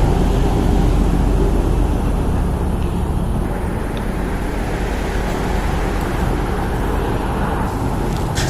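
A motor vehicle's engine running steadily, a low, even rumble.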